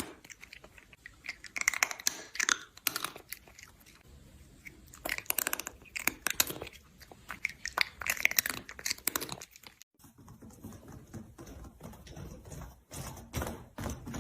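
An animal chewing crunchy food: crackly crunches come in bursts of about a second, with short pauses between them. After a brief break about ten seconds in, fainter clicks and crunches follow.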